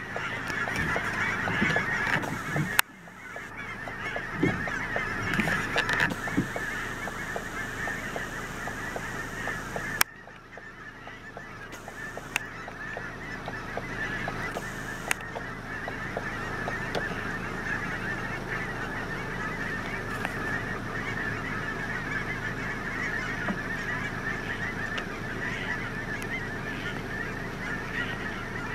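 A large flock of geese honking in flight, a dense chorus of many overlapping calls. The sound drops off sharply twice in the first ten seconds and then builds back up.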